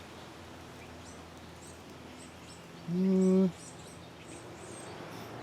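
Faint, high, short bird chirps repeating over a low background, with a brief steady low hum about three seconds in.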